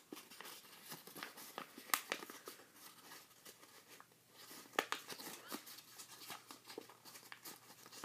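Sheet of paper crinkling and rustling in the hands as an origami model is folded, with scattered faint crackles and a couple of sharper crisp clicks about two and five seconds in.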